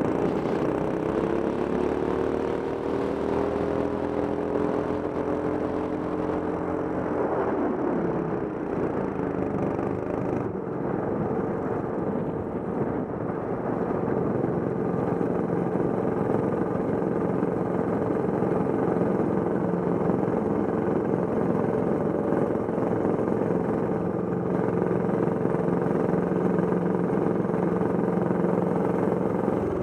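Racing kart's engine heard from on board. The revs climb slowly for several seconds, drop sharply about seven seconds in as the kart slows, then hold at a steady low speed.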